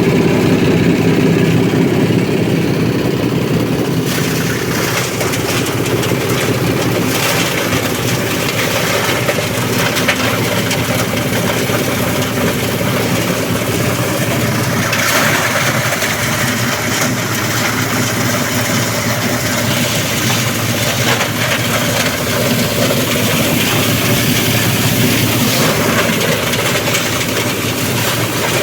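Multipurpose chopper-grinder shredding machine running steadily while grinding dry leaves for compost, with a constant mechanical hum. A broader rushing noise joins about four seconds in as the leaves go through the cutters, and grows stronger around fifteen seconds in.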